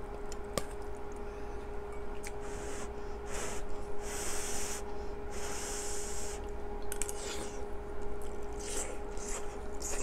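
A person eating hot kimchi stew from a spoon: chewing and several long airy hisses at the mouth between about two and seven seconds in, with a few light clicks of the spoon. A steady hum sits underneath.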